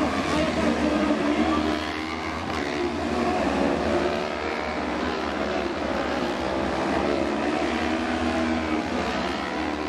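Several small autocross buggies racing on a dirt track. Their engines rev up and down over one another as the pack takes a corner.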